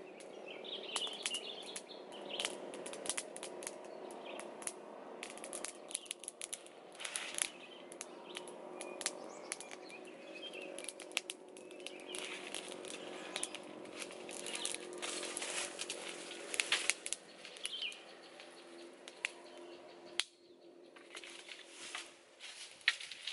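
Wood fire crackling and popping under a cooking pot, with sharp snaps scattered throughout. Birds chirp briefly now and then.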